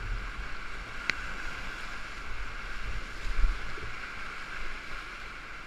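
Steady rushing of a big whitewater rapid, heard from an inflatable kayak in the waves, with uneven low thumps of water and wind buffeting the microphone and a single sharp click about a second in.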